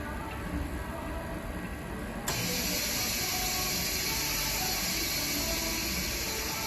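Vacuum laminating machine for phone screens giving a steady hiss of moving air, which starts suddenly about two seconds in.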